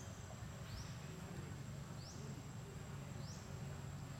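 Outdoor ambience: a steady, high-pitched insect drone, with a short rising chirp heard three times, about every second and a half, over a low rumble.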